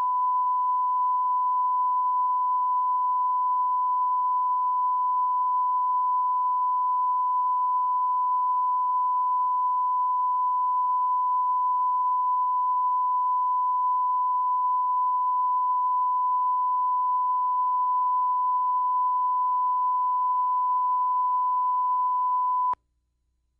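Steady 1 kHz reference test tone, one unchanging pure pitch, that cuts off abruptly near the end.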